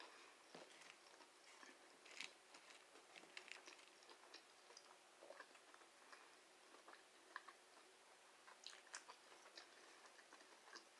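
Faint chewing of chicken nuggets, with soft, irregular mouth clicks.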